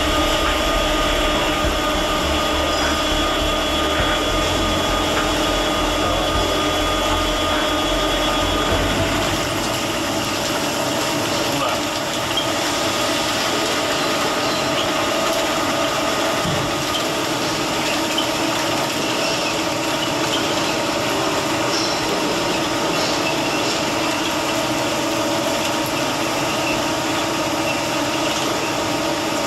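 Multi-spindle drilling machine running with a steady mechanical hum carrying several steady tones. A deep rumble underneath drops away about nine seconds in.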